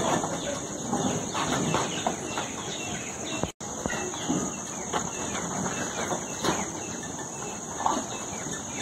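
Steady high-pitched drone of insects, with scattered faint short sounds beneath it; the sound cuts out for an instant about three and a half seconds in.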